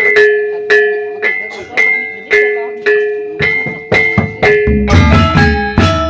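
Balinese gamelan starting up: a bronze metallophone strikes single ringing notes about twice a second, then a little past halfway drums and low gong tones join and the strokes grow denser as the full ensemble comes in.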